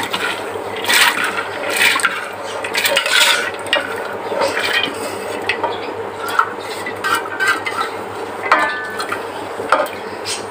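Soaked split chickpeas (chana dal) being poured from a steel bowl into an aluminium pot of water, a rattling patter of lentils into the water with many small clinks as a spoon scrapes the bowl against the pot.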